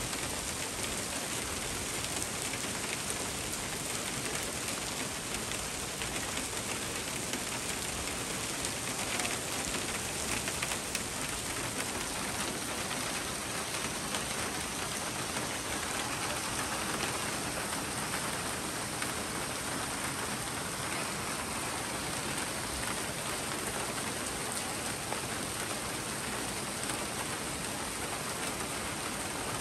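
Hail and heavy rain falling in a dense, steady patter of small impacts.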